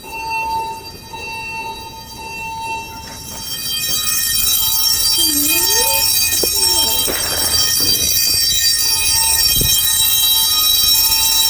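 Building fire alarm horns sounding steadily, set off by a burst sprinkler pipe, and growing much louder about four seconds in. A short thud comes near the end.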